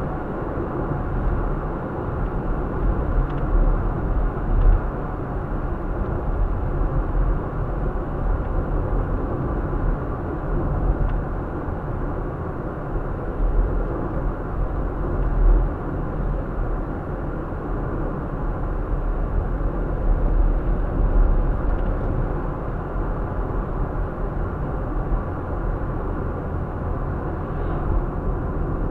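Steady road and engine noise of a car driving at speed, heard from inside the cabin: a continuous low rumble of tyres on asphalt, muffled in the highs.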